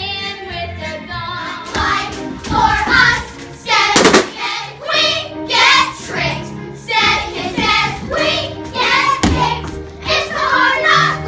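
Young performers singing a Broadway show tune together over musical accompaniment. A couple of sharp bangs cut through it, the loudest about four seconds in.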